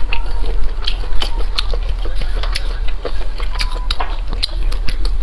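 Close-miked eating sounds: chewing with irregular wet mouth clicks and smacks, over a steady low hum.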